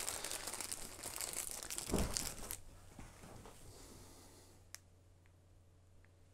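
Plastic snack wrapper crinkling and tearing for about two and a half seconds, with a dull thump a little before it stops; after that only a few faint small clicks.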